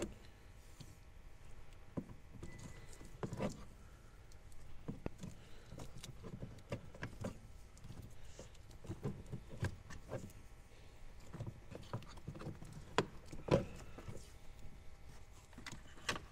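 Black electrical tape being pulled off the roll and wound around a wiring harness connector: scattered short clicks and rustles of tape and wires being handled.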